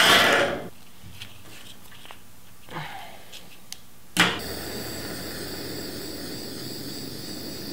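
A brief loud rustle at the start, then a few faint clicks of small tools. About four seconds in, a handheld butane torch lights with a sharp click and settles into a steady hiss of its blue flame.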